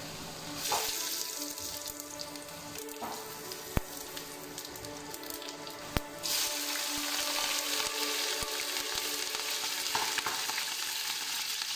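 Hot oil sizzling in a pan for a tadka, with bay leaves and whole dried red chillies frying in it. A couple of sharp clicks come before the sizzle grows much louder about six seconds in, as cumin seeds go into the oil.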